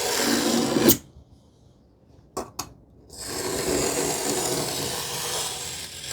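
A marking knife scraping across plywood along a square to cut a knife line: a drawn scrape that ends in a sharp click about a second in, two light taps, then a second long scrape from about three seconds in.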